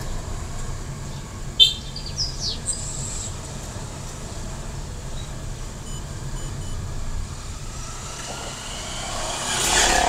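Car driving slowly, heard from inside the cabin: a steady low road and engine rumble. A few short, high chirps with falling pitch come about two seconds in, and the noise swells briefly near the end.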